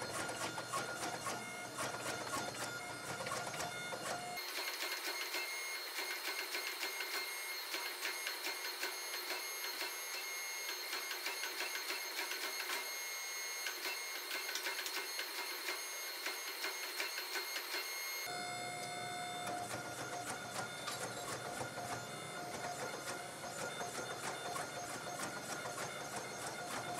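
Forging press running with a steady whine and dense rapid clicking as a red-hot pattern-welded steel billet is squeezed between its dies.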